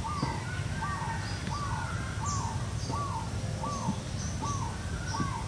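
An animal calling steadily outside: a short note that rises and falls, repeated evenly about once every 0.7 seconds, with faint high chirps above it.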